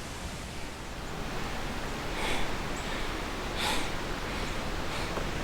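A hiker breathing hard while climbing stairs: two heavy exhales about a second and a half apart, over a steady rushing background noise.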